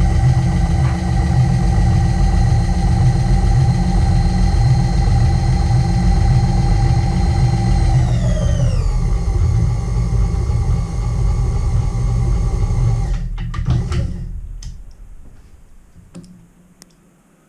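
Milling machine running with a steady motor and gear whine. About halfway through the whine drops in pitch, then the machine is switched off a few seconds later and winds down to quiet.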